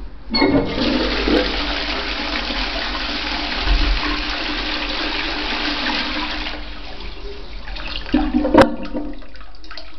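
Tankless toilet flushed with its wall-mounted lever flush valve: a strong rush of water starts just after the lever is pushed, runs for about six seconds, then tapers off. A sharp knock sounds about eight and a half seconds in as the flow dies away.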